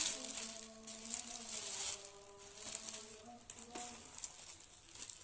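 Plastic bag rustling and crinkling in short bouts as clothes are handled. Under it, a soft melody of held notes steps up and down and stops about four seconds in.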